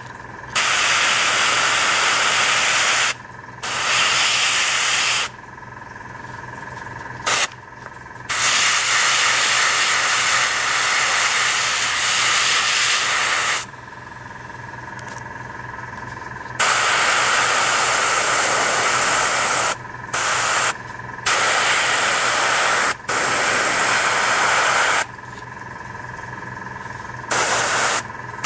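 A 0.2 mm dual-action gravity-feed airbrush spraying paint in repeated hissing bursts, from under a second to about five seconds long, as the trigger is pressed and released. A steady hum continues underneath in the gaps between bursts.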